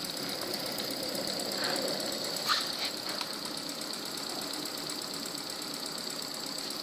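PM Research double-acting oscillating engine kit running on compressed air: a rapid, even mechanical clatter with a steady hiss of air at the ports. There is one light knock about two and a half seconds in.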